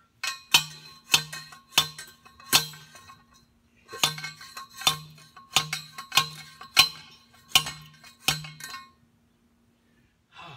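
Hand post driver slamming down on a steel T-post, driving it into the ground: about a dozen ringing metal clanks, roughly one every two-thirds of a second, in two runs with a short pause between them, stopping shortly before the end.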